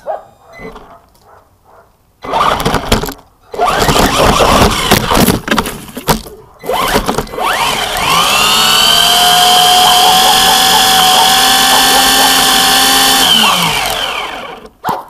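ZLL SG116 1:16 4WD RC car's brushless motor and drivetrain: short bursts of throttle with the tyres on dirt and gravel, then a whine that rises about eight seconds in, holds steady for about five seconds at full speed and falls off. During the held whine the car stays stuck in plants with its wheels spinning.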